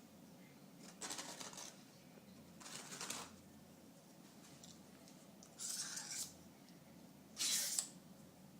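Four short scrapes of a spatula spreading frosting across a pan of cookie bars, the last one the loudest.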